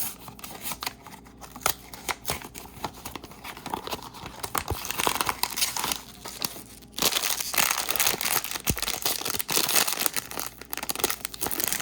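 Blind-box mini-figure packaging being torn open and crinkled by hand, with many sharp clicks. The rustling gets louder about four seconds in and again about seven seconds in.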